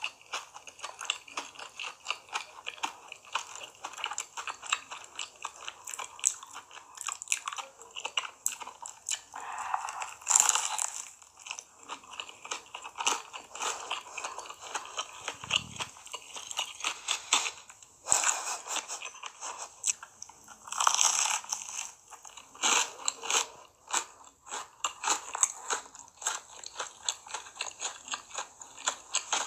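Close-miked eating of a pepperoni pizza baked in a bowl-shaped crust: crisp crust crunching under repeated bites, with wet chewing between them. Several bites stand out as louder crunches, about a third of the way in and again past the middle.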